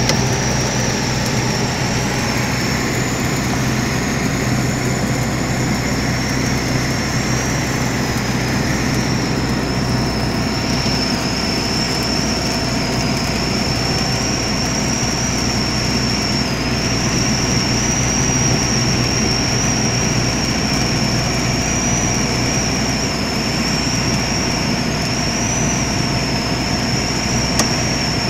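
Cabin noise of a Valentin Taifun 17E motorglider in flight: the steady drone of its piston engine and propeller, with a thin high whistle that wavers slightly in pitch.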